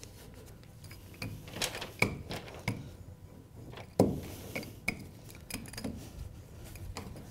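A small hand roller pressing self-adhering flashing tape down on a window sill, with scattered light clicks and knocks as it is worked; the sharpest knock comes about four seconds in.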